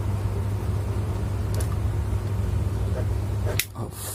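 Steady low electrical hum from the dimmer switch circuit while the dimmed bulb is on, cut short near the end by the click of the switch being turned off.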